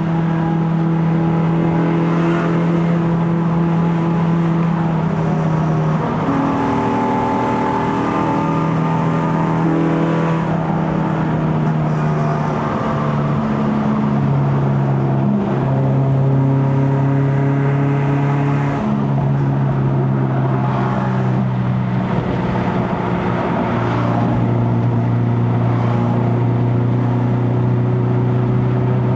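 Honda K24A four-cylinder engine in a Civic FD, breathing through a straight-pipe stainless exhaust, running under way as the car is driven. The engine note holds fairly steady, shifting up and down in pitch a few times as the revs change, with no big revs.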